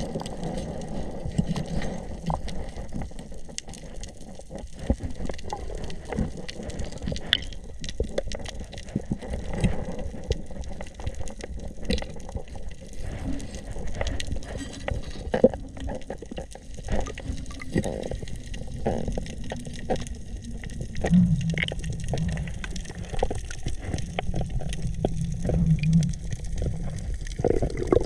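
Underwater sound on a reef: a steady muffled wash of water with many scattered short crackling clicks, and a couple of brief low hums near the end.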